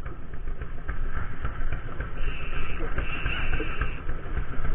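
A small spinning reel being cranked, giving a high whirr twice near the middle over a steady low rumble.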